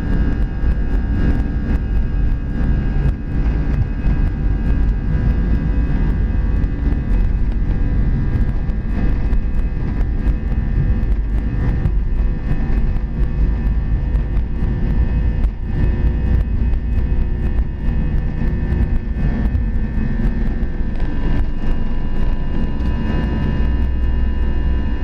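Airbus A320's two jet engines at takeoff thrust, heard from inside the cabin beside the wing during the takeoff roll and lift-off. A steady heavy rumble with a steady engine whine over it, and scattered short knocks.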